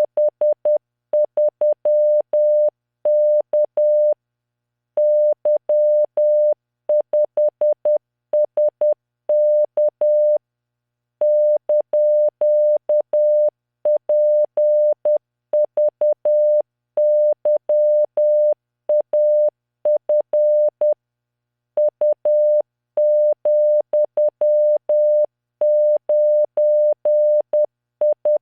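Morse code practice tone at 10 words per minute: a single 600 Hz tone keyed into dots and dashes, sending random five-character groups of letters, figures and punctuation, with a pause of about a second between groups.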